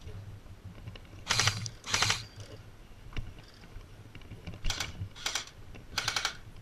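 Airsoft electric gun firing five short full-auto bursts of rapid clicks: two close together, a pause, then three more.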